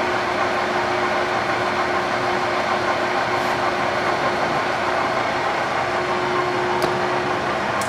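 Lansing Model G 16" x 40" engine lathe running at low spindle speed with the power feed engaged: a steady gear-drive hum with one constant tone, and two light clicks near the end.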